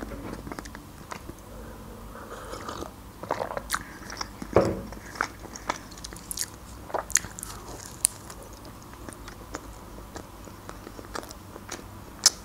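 Close-miked biting and chewing of lahmacun, a thin Turkish flatbread topped with minced meat: soft crunches and wet mouth clicks, loudest a little under five seconds in.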